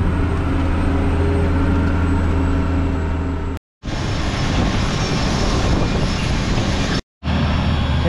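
Tractor engine running steadily, heard from inside the cab as a low, even hum. It cuts off suddenly about three and a half seconds in and gives way to a noisier, hissier stretch of machine sound, which breaks off again briefly near the end before the steady hum returns.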